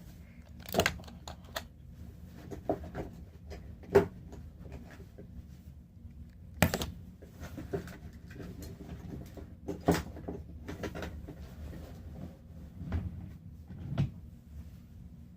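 Plastic puzzle cubes being handled and set down on a hard surface: a series of irregular knocks and clacks, about seven louder ones with lighter clicks between.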